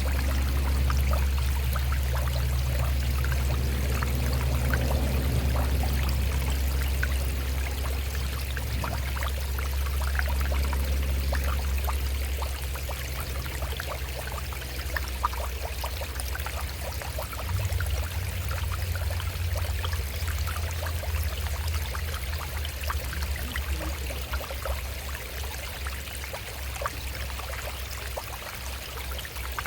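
Shallow stream running over rocks: a steady rush of water full of small splashes and trickles. A low rumble sits underneath and eases off about halfway through.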